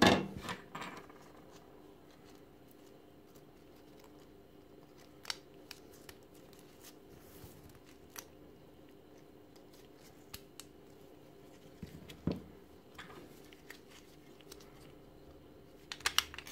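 Scattered clicks and knocks of a lithium-ion drill battery pack being handled: the 18650 cell block with its circuit board and the black plastic housing tapping together as they are fitted. The loudest clatter comes right at the start and a quick run of clicks near the end, with a duller knock in between.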